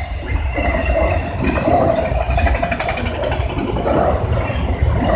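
Freight train of autorack cars passing at speed: the steady rumble of steel wheels rolling on the rails.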